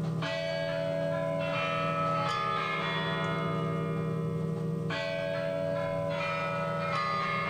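Bells ringing: several overlapping ringing tones at different pitches, with new strikes coming every second or two and each note sustaining.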